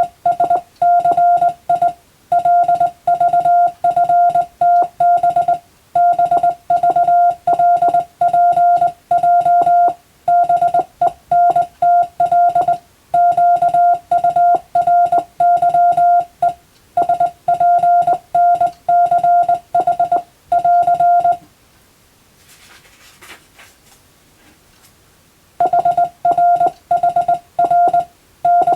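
Morse code (CW) tone: a single mid-pitched beep keyed in rapid dots and dashes, sent in groups of characters with short spaces between them, as used for radiotelegraph receiving practice. About three quarters of the way in it pauses for a few seconds, then resumes.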